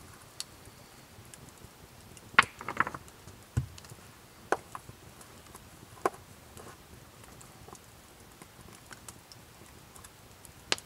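Wood campfire crackling, with sharp, irregular pops spaced a second or more apart. A short cluster of louder knocks comes about two and a half seconds in, followed by a dull thud.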